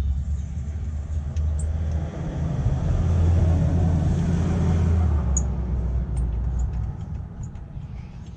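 Low rumble of a road vehicle going past, swelling to its loudest mid-way and fading away, with a few faint small clicks of parts being handled.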